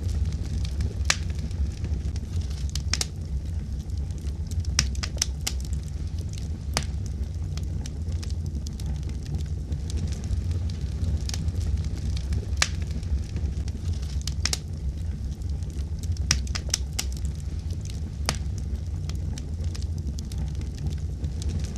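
Fire crackling: sharp pops and snaps at irregular intervals over a steady low rumble of the flames.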